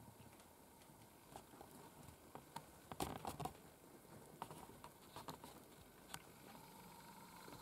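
Faint, scattered clicks and taps at irregular intervals, with a short cluster of louder ones about three seconds in, over a low background hiss.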